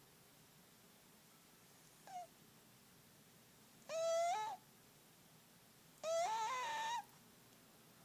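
A fat house cat making short, high-pitched squeaky calls that rise and bend in pitch, one about every two seconds: a faint brief one, then three louder ones, each about half a second to a second long.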